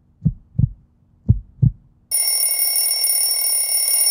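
Heartbeat sound effect: low lub-dub double thumps, about one beat a second, three beats. About two seconds in it cuts abruptly to a loud, steady, high-pitched electronic ringing tone over hiss.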